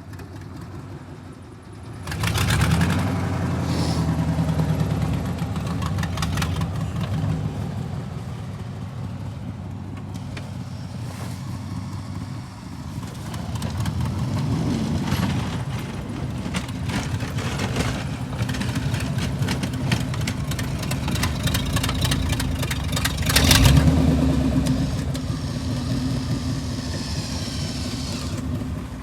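Snow-plough truck's engine running under load, picking up about two seconds in and revving harder briefly near the end.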